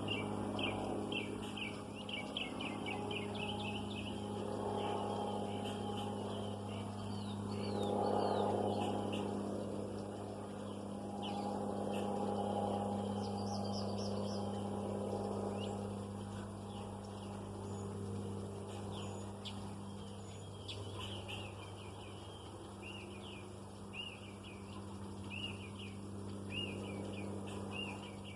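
Small birds chirping in quick repeated runs over a steady low hum. A broad rushing noise swells and fades twice, about eight seconds in and again a few seconds later.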